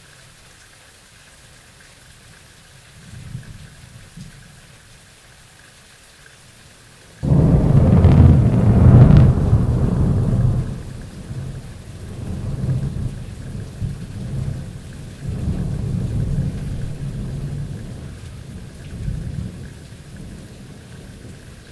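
Thunderstorm: steady rain with a faint rumble of thunder about three seconds in, then a sudden loud thunderclap about seven seconds in that rolls on as low rumbling for several seconds and dies away near the end.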